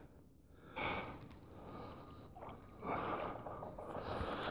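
Faint breathing through the nose: a couple of short sniffing puffs, about a second in and again around three seconds.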